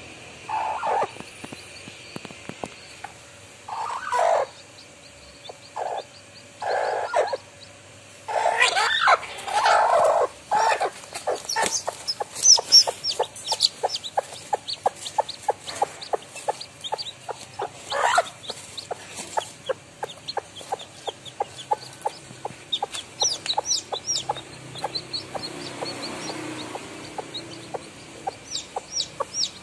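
Broody hen clucking on her nest in short bursts, then a run of quick clucks from about ten seconds in, with newly hatched chicks peeping in high, thin chirps through the second half.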